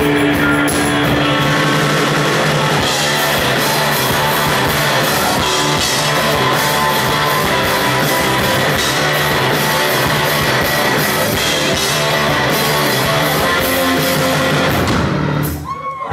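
Live rock band playing an instrumental passage on electric guitars and drum kit, loud and dense, before stopping abruptly about a second before the end.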